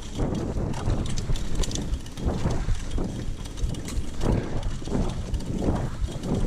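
Mountain bike ridden along a dirt trail, heard on an action camera: a steady low rumble of tyres and air over the microphone, with the bike rattling and knocking irregularly over bumps.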